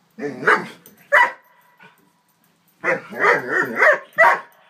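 Nine-month-old Doberman barking in short bursts at a toy horse it is afraid of: fearful, wary barks. There are two barks near the start and one a second later, then a quick run of several barks about three seconds in.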